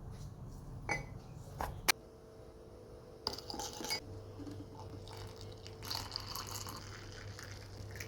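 A few sharp clicks and clinks of small hard objects, the loudest about two seconds in, followed by short spells of rustling or scraping over a faint steady hum.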